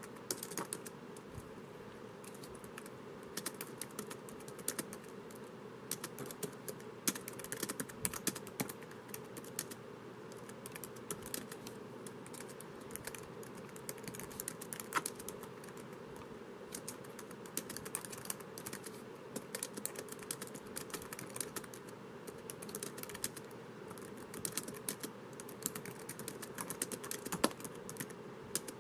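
Typing on a laptop keyboard: quick runs of light key clicks with short pauses between them, over a steady low hiss.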